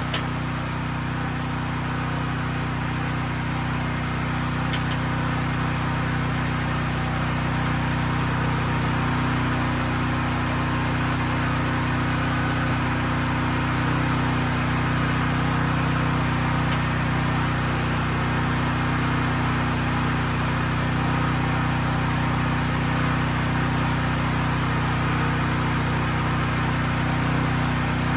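CNC plasma cutter running a cut on steel plate: a steady hiss over a constant low electrical hum, unchanged throughout.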